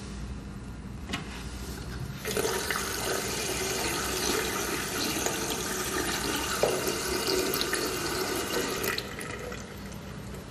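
Water running: a steady rush that starts about two seconds in and stops about a second and a half before the end.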